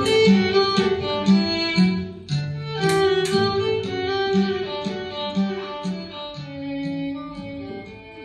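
Folk-style instrumental music: a fiddle melody over plucked-string accompaniment with a steady bass line, fading down gradually toward the end.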